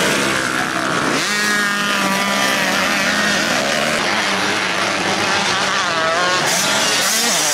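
Several motocross bike engines revving hard, their pitch climbing and falling again and again as the bikes accelerate and shift, over a steady engine note.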